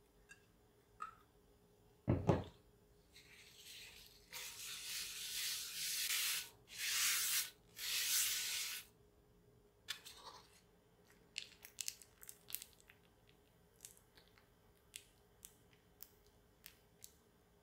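A folded paper towel wiping oil around a nonstick frying pan, in several long rubbing strokes, after a single dull knock about two seconds in. Near the end come a scatter of small, faint ticks.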